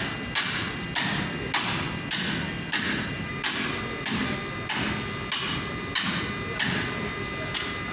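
A hammer striking at a steady pace, about a dozen sharp blows a little over half a second apart.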